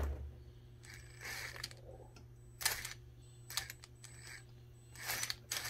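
Gearbox of an Axial SCX10 III RC crawler clicking as the drivetrain turns: about five sharp, irregularly spaced clicks over a low steady hum. The owner takes the clicking for play in a gear inside the transmission.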